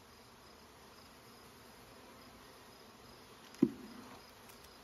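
Honeybees humming steadily around an open hive, with one sharp knock about three and a half seconds in.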